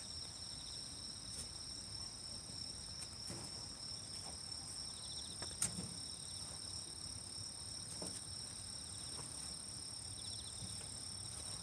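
Evening chorus of crickets and other insects: a steady high chirring at several pitches. A few faint knocks sound through it, the sharpest about halfway through.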